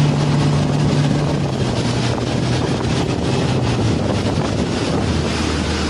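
Motorboat engine running under way, with the rush of the wake and wind buffeting the microphone. The engine tone sinks gradually over the first few seconds as the boat eases off, and a lower engine drone takes over near the end.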